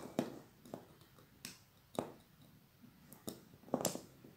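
About six small, sharp clicks and taps, spaced irregularly, from jumper-wire connectors and a USB cable being handled and plugged into a microcontroller board.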